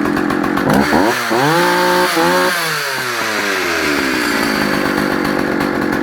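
Vintage Swedish two-stroke chainsaw idling, revved up sharply about a second in and held at high revs for about a second, then falling back to idle. It has a four-stroking burble as it ticks over and comes off the top of the revs.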